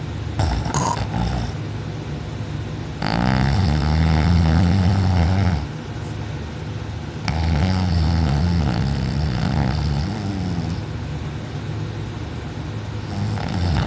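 A person snoring loudly in deep sleep: two long, low snores, each about three seconds, starting some four seconds apart, with softer breathing between them.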